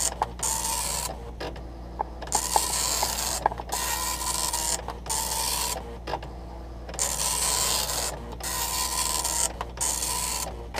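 Epson MX-80 III dot-matrix printer printing its self-test character set, the print head buzzing across the paper in passes of about a second each. Each pass is followed by a short gap with sharp clicks as the paper feeds to the next line.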